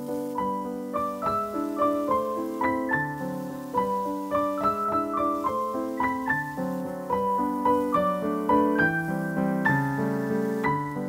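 Background piano music: a steady, flowing melody of notes over chords.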